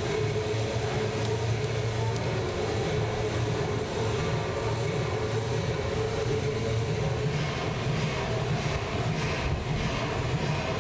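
Busy shopping mall ambience: a steady low rumble with a constant hum and no distinct events.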